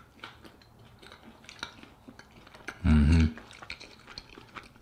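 A person chewing a mouthful of curry-soaked bread, with soft wet clicks of the mouth. About three seconds in comes a short hummed 'mmm'.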